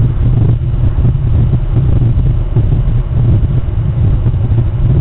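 Steady low rumble of wind buffeting the outdoor nest camera's microphone.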